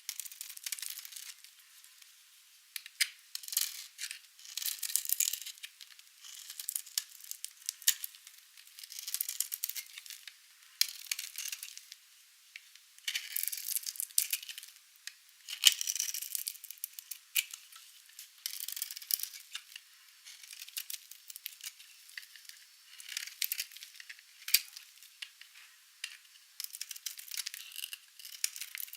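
Knife cutting through dry, painted soap: crisp crunching and crackling in short bursts, one every second or two, with sharp little clicks as pieces crumble and break off.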